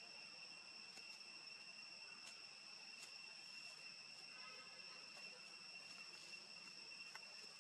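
Faint, steady high-pitched insect chorus, with a few faint ticks.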